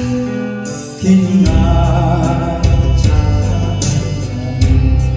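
A voice singing a slow Korean song over a backing track with a bass line and a steady beat. The bass drops out briefly about a second in, then the beat comes back in.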